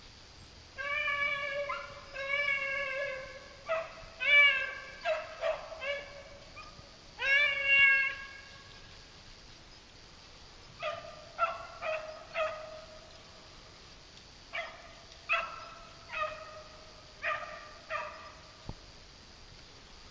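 Beagles baying as they run a rabbit's track. The calls come as long, drawn-out howls in the first several seconds, then as a string of shorter, evenly spaced barks in the second half.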